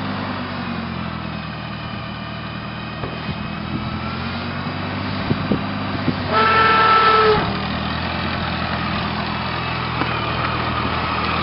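Massey-Harris Pony tractor's small engine running as the tractor is driven slowly, its pitch drifting a little. About six seconds in, a horn toots once for about a second.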